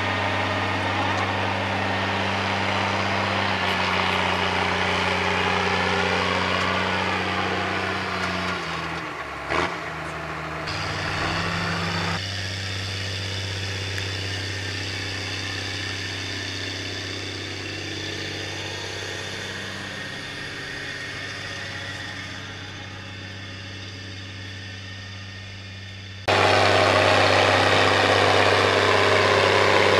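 New Holland G210 tractor's diesel engine running steadily under load while pulling a 6 m Maschio Gaspardo rotary power harrow through the soil. The level shifts between shots and becomes suddenly louder and closer near the end.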